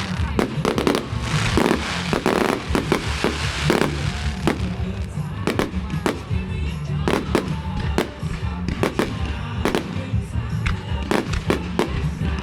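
Fireworks display: a rapid, continuous run of sharp bangs and cracks from bursting shells, several a second, over a low rumble.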